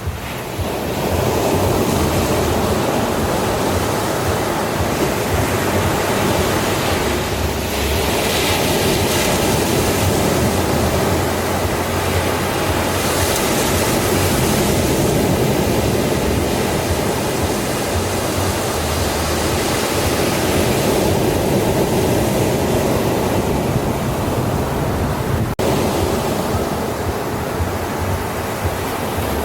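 Ocean surf washing onto a beach: a steady rush of water noise with a few louder hissing surges as waves break.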